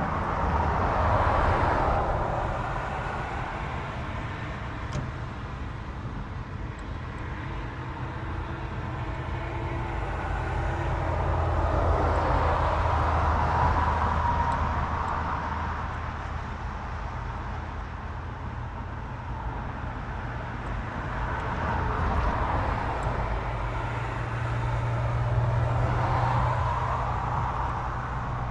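Vehicles passing on a nearby road: a steady low engine hum with three passes that each swell and fade over a few seconds.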